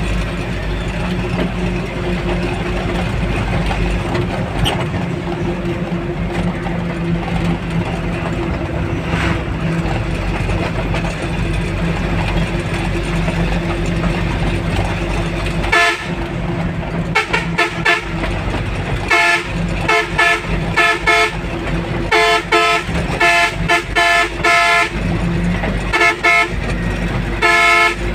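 Truck's diesel engine running steadily, heard from inside the cab. From about halfway through, the truck's horn sounds in many short, repeated blasts of one steady pitch, signalling to overtake the vehicle ahead.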